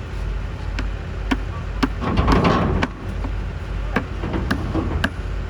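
Low, steady engine rumble with scattered sharp knocks and clunks, about six in all.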